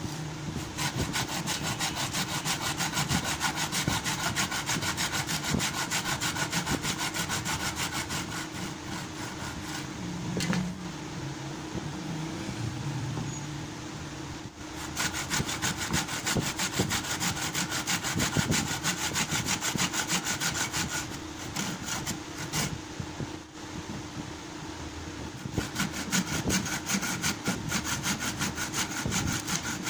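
Hand-held saw blade cutting into the wooden cricket bat at the handle splice, in fast back-and-forth strokes. It saws in three spells, pausing about ten seconds in and again about twenty-two seconds in. A steady low hum runs underneath.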